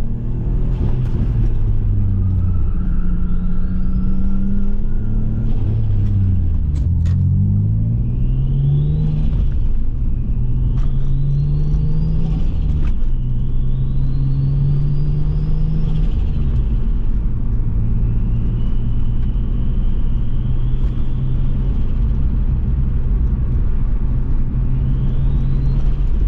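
Turbocharged Subaru EZ30 flat-six engine pulling through the gears. Its pitch climbs and falls back at each shift, with a rising turbo whistle over the engine note on each pull. It holds a steadier note for a while before pulling again near the end.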